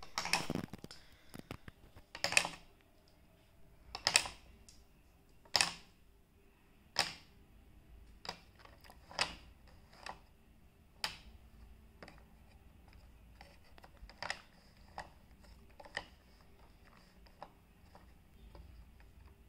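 Wooden marble-run toy clicking and clacking as its pieces and marbles are handled: sharp separate knocks roughly every second, louder in the first seven seconds and fainter and more scattered after.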